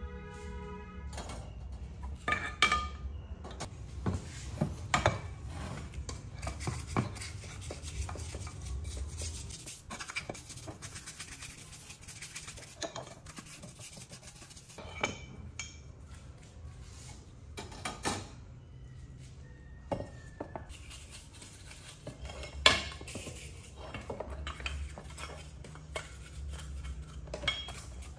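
Cast aluminium Stihl chainsaw crankcase halves being handled and cleaned: irregular clinks and knocks of the metal castings against a wire-mesh rack and tray, with a stiff brush scrubbing a part in cleaning fluid. A few sharp knocks stand out, the loudest about two-thirds of the way through.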